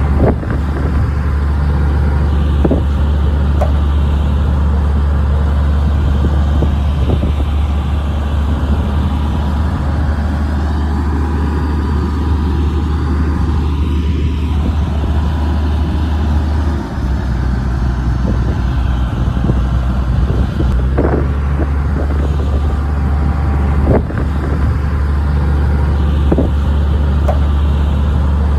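Heavy diesel engine of a Shantui DH17C bulldozer running steadily under work, with its pitch shifting about two-thirds of the way through. A few short clanks are heard along the way.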